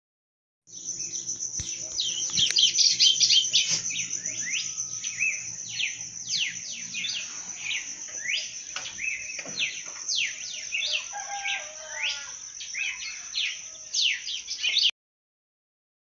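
Many birds chirping and twittering in quick, overlapping calls over a steady high buzz. The sound cuts off suddenly about a second before the end.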